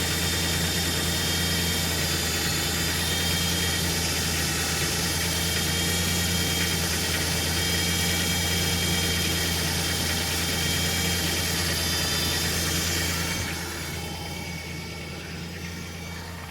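2000 Ford Ranger running with a steady high-pitched whine over the engine hum, which the owner takes to be coming from the automatic transmission. About thirteen seconds in, the sound drops quieter and the whine fades.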